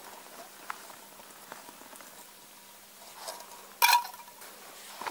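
Water heating in a small camp pot, faint bubbling and ticking as it nears the boil. About four seconds in there is one sharp clank with a brief ring, typical of metal cookware being handled.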